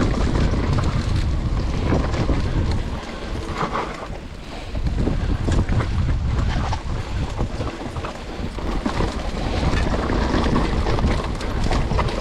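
Wind buffeting the microphone: a loud, uneven rumble that rises and falls in gusts, easing briefly about four seconds in.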